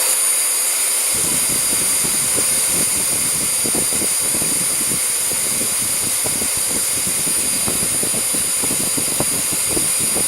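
Rowenta Compact Power Cyclonic bagless vacuum cleaner running steadily at full suction, with a loud, steady high-pitched whistle over its rushing airflow. The whistle is caused by a clogged HEPA filter that no longer lets enough air through.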